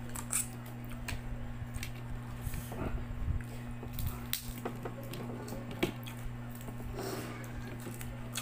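Close-up eating sounds of crab eaten by hand: sucking, smacking and biting at the crab meat and shell, with many short scattered clicks and a few louder cracks. A steady low hum runs underneath.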